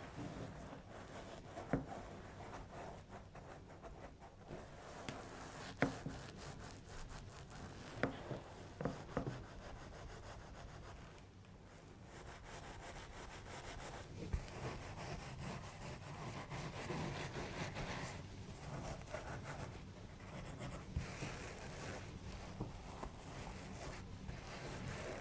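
Hands rubbing and working over a body during a chiropractic-style adjustment, a steady soft rubbing with a handful of sharp cracks or pops scattered through, the loudest about six seconds in.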